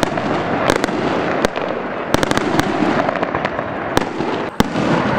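Aerial fireworks display: a dense, continuous crackle with sharp bangs scattered throughout, several in quick succession a little after two seconds in.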